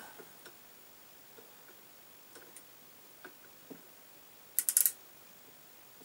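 Steel outside micrometer being worked on a crankshaft journal: a few faint scattered ticks, then a quick run of sharp clicks about four and a half seconds in from the thimble's ratchet stop as the spindle closes on the journal.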